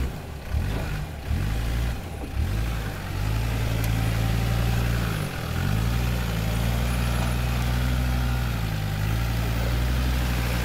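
Land Rover Discovery 2's Td5 five-cylinder turbodiesel engine working at low revs as the truck crawls cross-axled through deep ruts. The revs dip and pick up several times in the first few seconds, then hold fairly steady with a couple of brief dips.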